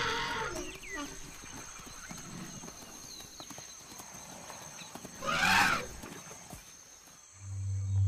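Forest elephants trumpeting: the tail of one call at the start, then a short trumpet that rises and falls about five seconds in. A low steady hum starts near the end.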